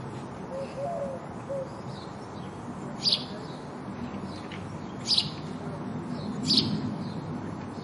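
House sparrow chirping: three loud, short, high chirps about two seconds apart, with fainter chirps between them, over a steady low background noise.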